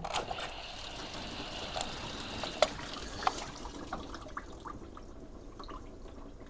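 Water from a garden hose spray nozzle running and splashing into a Fiat 500's coolant filler to flush the cooling system, with a few sharp clicks. The flow dies down after about four seconds.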